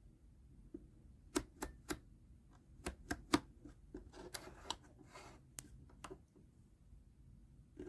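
Irregular sharp plastic clicks and taps from a small electric space heater's controls being handled, with a brief rustle about four to five seconds in.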